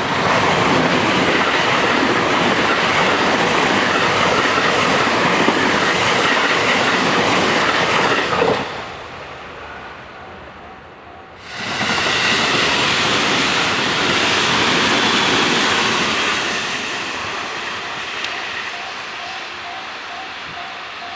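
JR West commuter electric train passing over a level crossing at speed, its wheels running on the rails. The sound drops away about 8 to 9 seconds in, and a second train pass starts abruptly near 12 seconds and fades after about 16 seconds. Near the end the crossing's warning bell comes back with faint repeated dings.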